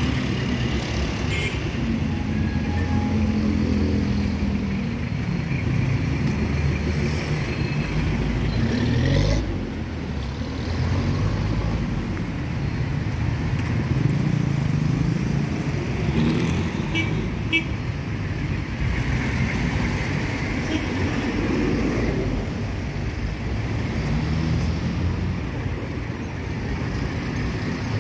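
Busy street traffic: jeepneys, cars and motorcycles passing close by with a continuous engine and tyre rumble. One vehicle passes loudly about nine seconds in.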